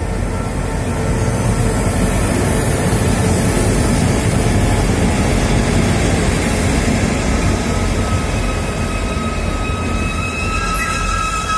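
Two HŽ class 2062 diesel-electric locomotives pass close by hauling tank wagons: a loud, steady engine and rail rumble. Near the end a high, steady squeal from the wheels sets in as the tank wagons roll past.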